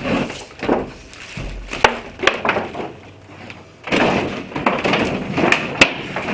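Packaging being handled and pulled apart: cardboard and a molded plastic insert scraping and crinkling, with a few sharp clicks and knocks. The busiest stretch comes about four seconds in.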